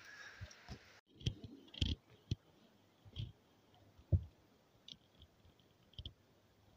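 Footsteps heard as scattered soft thumps and light clicks at an uneven pace, about seven in all, the strongest about four seconds in. There is a faint outdoor hiss in the first second.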